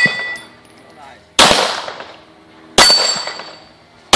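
Pistol shots fired at a steel dueling-tree target, about one and a half seconds apart, the last right at the end. Each sharp crack is followed by the metallic ring of the struck steel plates.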